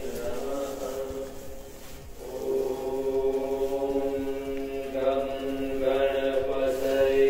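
Chanted mantra over a steady drone of long held notes. The notes break off about two seconds in, then resume and swell louder in the second half.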